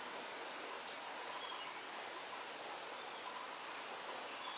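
Steady background hiss with short, very high-pitched chirps repeating irregularly about every half second.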